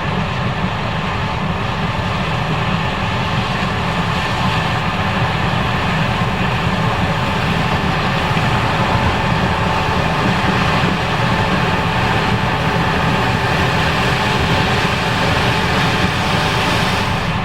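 Case IH 5140 Axial-Flow combine running steadily while harvesting corn: the engine and threshing machinery make an even, unbroken mechanical drone with a mix of steady whines.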